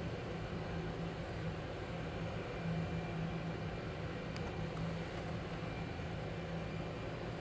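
Steady low hum over a constant background hiss, with one faint short tick about four and a half seconds in.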